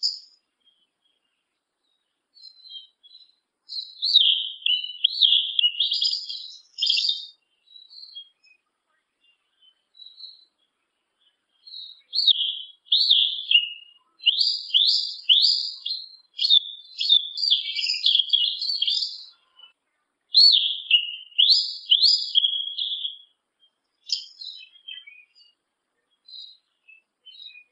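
Male yellow-legged thrush (sabiá-una) singing: bouts of quick, high-pitched notes, many of them rising, each bout a few seconds long, with pauses and a few scattered short notes between.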